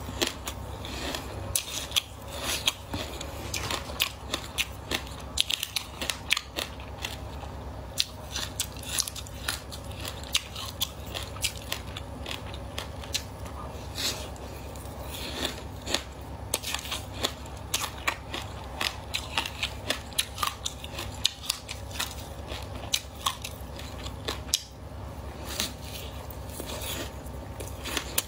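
Frozen passion fruit ice being bitten and chewed, a dense run of sharp, irregular crunching cracks, with a steady low hum underneath.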